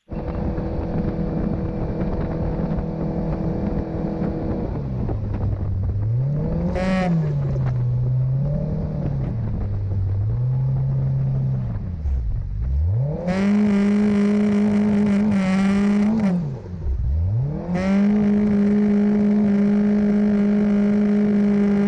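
Mercury 60/40 jet outboard running under way, its pitch rising and falling as the throttle is worked. It drops nearly to idle twice, about 12 and 17 seconds in, comes back up each time, and then holds a steady run. The whole thing is an awful racket.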